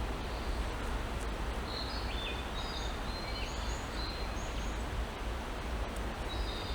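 Forest ambience: a steady rushing noise with a few short high bird chirps, clustered between about two and four seconds in and once more near the end.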